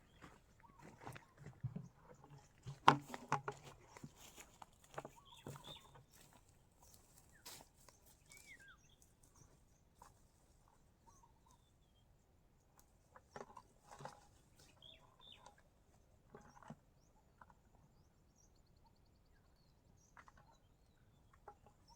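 Chickens clucking now and then, with short calls among scattered soft clicks and knocks; the loudest knock comes about three seconds in.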